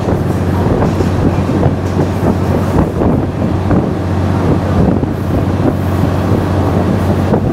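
Passenger train running at speed, heard from inside a carriage at an open window: a steady low rumble with irregular rattling of wheels on the rails, and wind buffeting the microphone.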